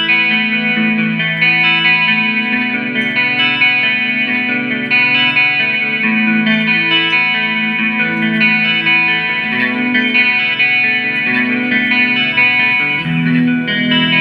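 Guitar music played through effects, with held notes that change every second or so.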